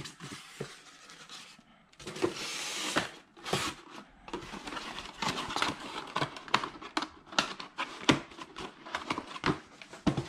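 Cardboard box and foam packaging being handled as a speaker driver is packed back into its box and the flaps closed: rustling and scraping cardboard, then many quick small taps and knocks from about halfway in.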